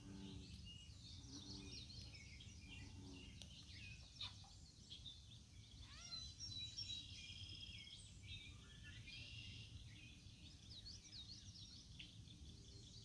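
Quiet outdoor birdsong: several birds chirping and whistling with quick high, sliding notes, over a steady low rumble. A few short low-pitched calls come in during the first few seconds.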